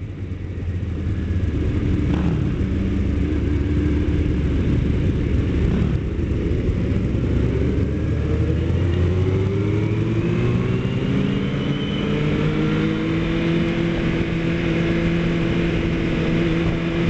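Motorcycle engine pulling away and accelerating in a group of sport bikes, heard from the moving bike with wind rush on the microphone. It gets louder over the first couple of seconds, and its pitch climbs steadily from about halfway through before levelling off near the end.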